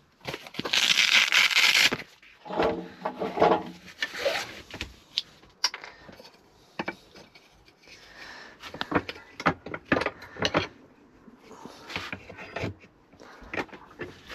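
Pieces of cut cherry wood and hand tools being handled on a work surface: a scrape about a second in, then scattered knocks and clicks of wood on wood.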